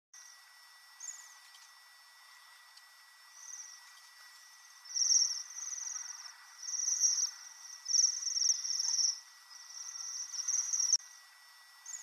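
A flock of waxwings, Bohemian waxwings among them, giving high, thin trilled calls: a few short calls in the first seconds, then overlapping trills almost without a break from about five seconds in until about eleven seconds.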